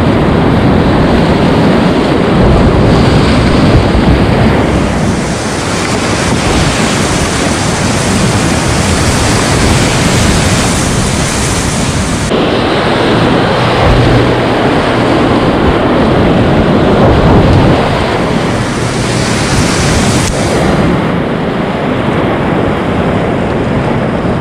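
Loud, steady rush of whitewater rapids heard from a kayak running them, the churning current close around the bow.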